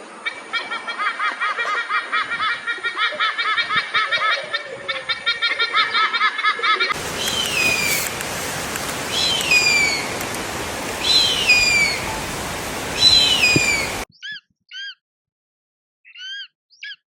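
Eagle calls from three spliced recordings: a fast chattering series of high piping notes, then four long descending screams about two seconds apart, then short clipped chirps.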